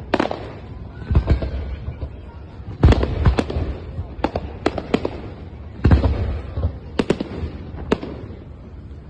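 Aerial fireworks shells bursting overhead: about a dozen sharp bangs at uneven intervals, several coming in quick succession, each trailing off into a lingering echo.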